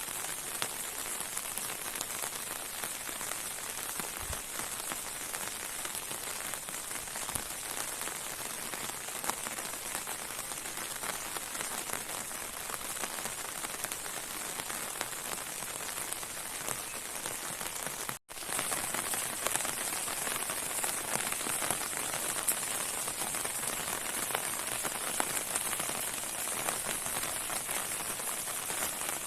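Steady heavy rain falling, a dense hiss of many drops hitting surfaces. There is a momentary break about eighteen seconds in, after which the rain is a little louder.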